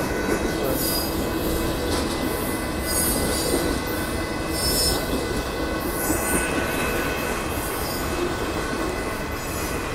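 Union Pacific freight train of boxcars rolling past at close range: a steady rumble and clatter of wheels on rail, with high-pitched wheel squeal flaring up every second or two.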